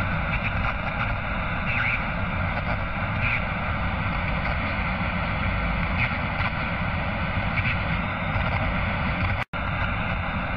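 A steady rushing noise with no clear tone or beat, broken by a split-second dropout about nine and a half seconds in.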